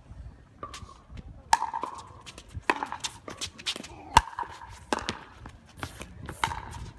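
Pickleball rally: a run of sharp pops as paddles strike the hollow plastic ball, the loudest about four seconds in, with wind rumbling on the microphone.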